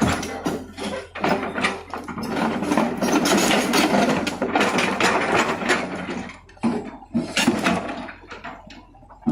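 Machinery running with irregular knocks and clatter, densest from about two to six seconds in.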